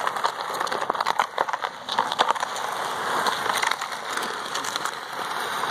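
Plastic trash can being dragged along asphalt, its base scraping the pavement: a continuous gritty scrape with many small clicks.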